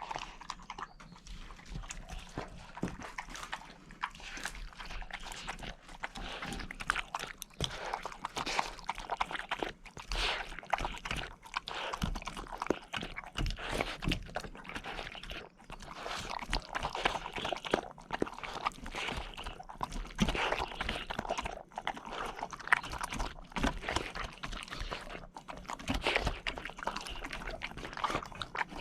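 A two-month-old Bernese Mountain Dog puppy hoovering things up off the ground with its mouth: a dense, irregular run of small crunches, clicks and rustles.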